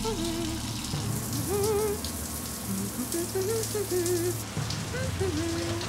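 Shower water spraying steadily, with a slow, wavering melody over it.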